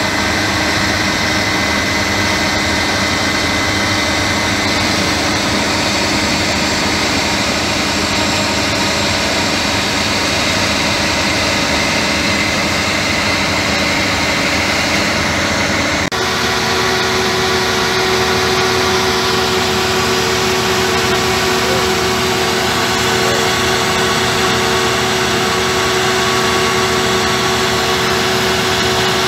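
Auger drilling rig running steadily: its diesel engine and the hydraulic drive of the screw auger give a loud, continuous machine drone. About halfway through, the sound switches abruptly to a different steady drone with a clear mid-pitched hum.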